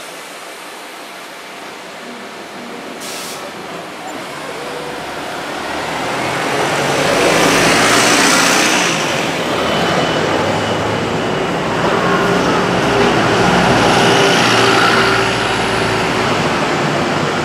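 Double-decker buses passing close by, their engines running and growing louder about six seconds in as one draws alongside, staying loud for several seconds, then easing off near the end as a bus pulls away.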